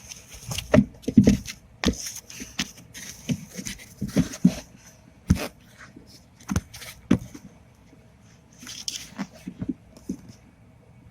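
Handling noise: irregular clicks, knocks and scraping as a camera is worked in against metal and plastic around the top of a front strut mount. Busy for most of the first seven seconds, then a pause and a few more knocks near the end.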